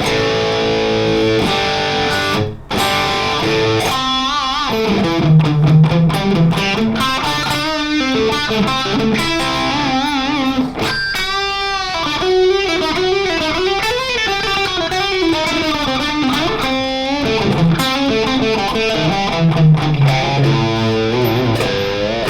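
Electric guitar through a Friedman BE-Mini solid-state amp on its crunch tone, with no pedals: a crunchy rock tone playing chord riffs and single-note licks with vibrato bends. The playing breaks off briefly about two and a half seconds in.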